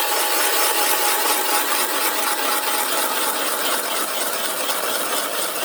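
Ice auger boring a hole through river ice: a steady grinding scrape of the cutting blades in the ice.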